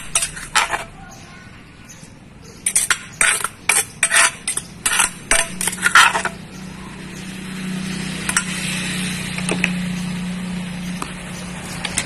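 Plastic spoon scraping pounded papaya salad out of a clay mortar, in quick strokes about three a second. Two runs of strokes fill the first six seconds, and a steady low hum with hiss takes over after about seven seconds.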